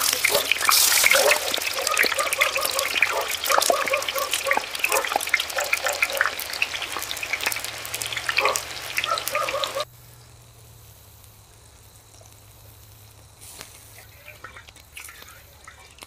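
Tofu frying in hot rapeseed oil in a wok: a dense sizzle with sharp crackles of spattering oil. It cuts off abruptly about ten seconds in, leaving only a faint, much quieter background.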